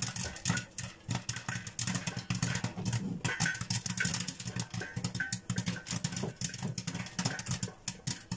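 Popcorn kernels popping in a lidded pot on the stove: a dense, irregular run of sharp pops, over a low steady hum.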